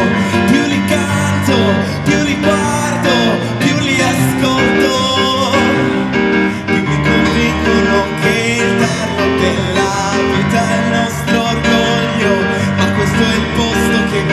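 Live pop music: a band with piano playing, and a lead voice singing over it.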